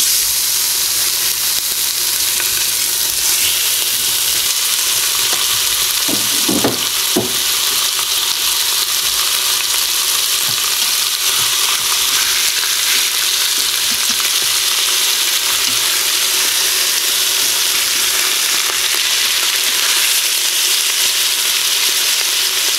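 Ground beef patties frying in hot oil in an Instant Pot's stainless steel inner pot: a loud, steady sizzle that starts suddenly as the first patty goes in. A couple of low knocks, a utensil against the pot, come about six to seven seconds in.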